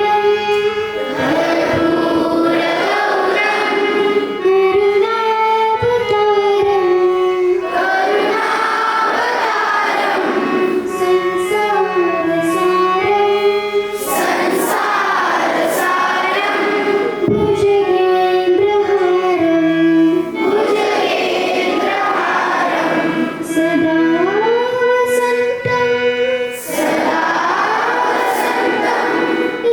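A group of children singing a song together with instrumental accompaniment, the voices holding long notes over a steady lower backing.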